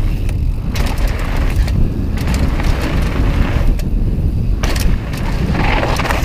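Mountain bike descending a dirt forest trail at speed, heard from the bike's own camera mount. A steady low rumble of tyres on dirt and wind, broken by sharp knocks and rattles from the bike over bumps.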